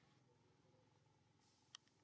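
Near silence: faint background hum, with one short faint click near the end.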